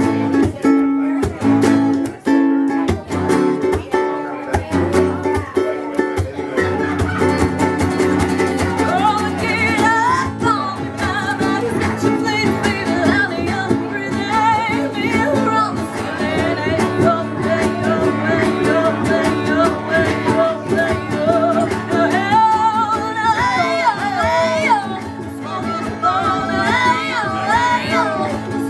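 Live acoustic guitar and ukulele strumming a song, with singing coming in about eight seconds in.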